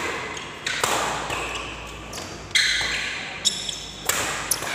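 Badminton rackets striking the shuttlecock in a rally: about five sharp smacks at uneven intervals, each echoing briefly in a large hall.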